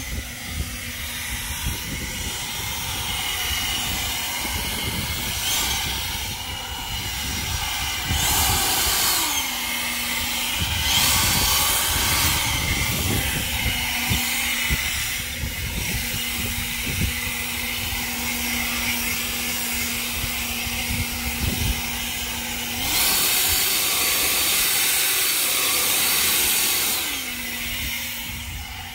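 Ego cordless battery leaf blower running, a steady rush of air with a hum from its fan. It surges louder several times, the longest surge about two-thirds of the way through.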